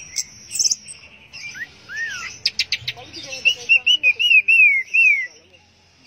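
Orange-headed thrush singing: scattered whistled notes, then a few quick clicks about two and a half seconds in, then a loud run of about seven short down-slurred whistles. A steady high hiss of insects runs behind it.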